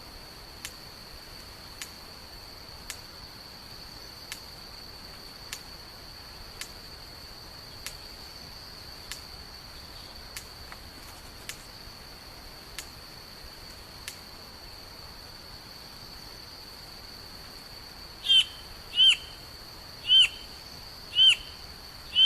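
A bird calling: a run of sharp ticks about once a second, then near the end five loud short calls about a second apart, over a steady high-pitched drone.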